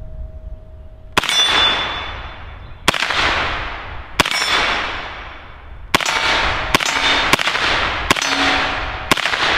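IWI Tavor bullpup rifle with a 9mm conversion kit firing eight semi-automatic 9×19mm shots at an uneven pace, roughly a second apart, the last few faster. Each shot is followed by a long fading echo, and several leave a brief ringing tone.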